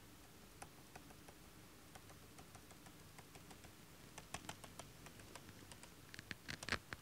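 Faint clicks and taps of a stylus on a drawing tablet while a figure is being drawn. They are sparse at first, then come more quickly and a little louder over the last three seconds.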